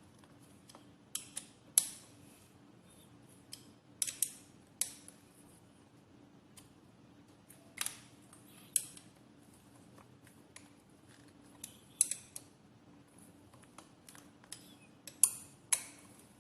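Sharp mechanical clicks at uneven intervals, several in quick pairs, about a dozen loud ones in all, over a faint steady hum.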